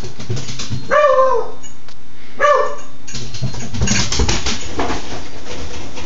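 A puppy barks twice, about a second in and again a second and a half later, each bark a short rising-then-falling call. Underneath runs the steady noise of a microwave turntable being turned by hand, the sound the dog is barking at.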